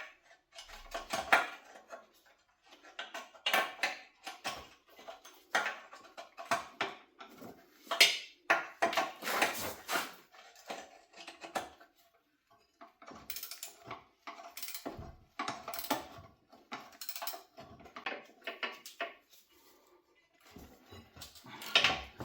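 Metal hand tools clinking and clanking against a car's rear subframe in irregular bursts of short rattles, as a stubborn subframe bolt is worked loose.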